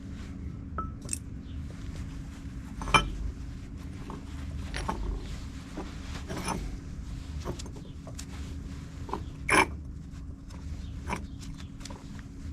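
Hand cleanup of a gasket mating surface on an Oldsmobile 350 V8: scattered scrapes and clicks of tools and a rag working on the metal, with two sharper knocks about 3 s and 9.5 s in, over a steady low hum.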